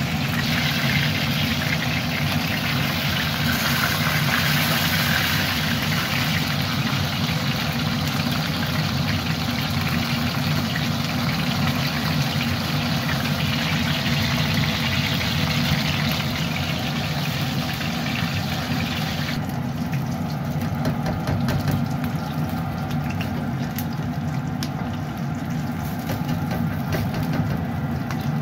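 Chicken wings sizzling in hot oil in a steel wok over a steady low hum. The hiss drops away sharply about two-thirds of the way through, leaving the hum and light clicks of chopsticks against the wok.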